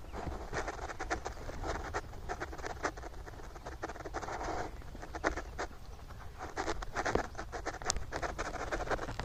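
Footsteps crunching over dry, cloddy farm soil, an irregular patter of short scratchy steps with rustling close to the microphone.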